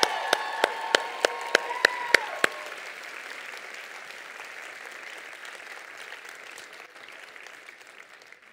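Audience applause and cheering answering a call to make some noise. For the first two and a half seconds there are sharp, close claps about three a second and sustained shouts from the crowd, then the applause fades away gradually.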